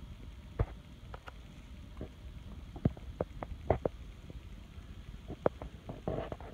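Scattered light clicks and taps of a kitten's and a cat's paws and claws on a hardwood floor as they play, over a low rumble. A short rustle near the end.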